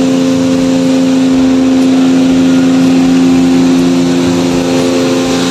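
Steady, loud mechanical hum of running machinery: several fixed tones over an even hiss, unchanging throughout.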